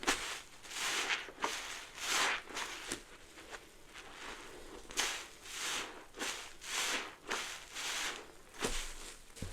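A sudsy sponge soaked in Fabuloso cleaner and Mr. Bubble bubble bath squeezed over and over, each squeeze a short burst of crackling, squelching foam, about one or two a second, with a brief lull in the middle.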